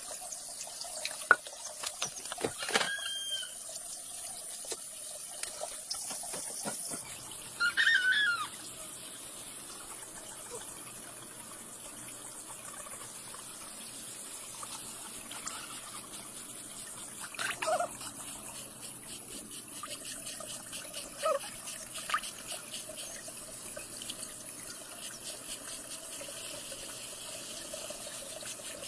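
Water running or trickling steadily.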